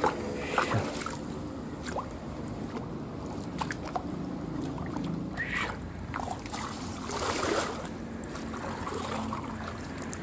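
Shallow river water sloshing and splashing as someone wades through it, in uneven bursts, with a louder splash about seven seconds in.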